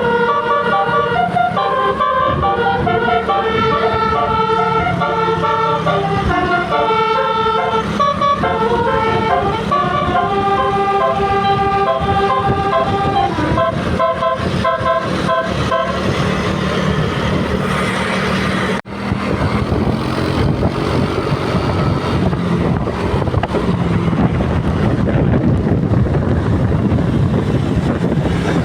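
Telolet Basuri musical air horn on a tour bus playing a melody of several tones sounding together, stepping from note to note for about sixteen seconds. The horn then stops, leaving the bus's engine and road noise with a low hum, broken by a brief dropout a little past the middle.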